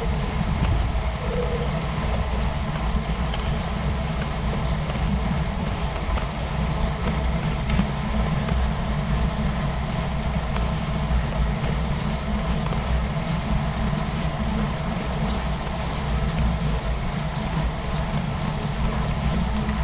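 Steady rush of wind on a GoPro's microphone and tyre noise from road bikes rolling on asphalt in a group, with no breaks.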